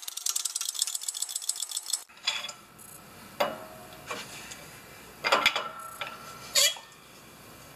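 Hydraulic bottle-jack shop press being set and worked to press a bushing's center shaft into a lower control arm. A fast run of metallic clicks lasts about two seconds. Then come about five separate sharp metal clanks, some with a short ring.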